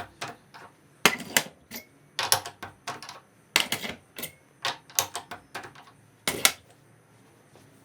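Clusters of sharp clicks and knocks, each group a few quick strikes, coming about once a second with short quiet gaps between.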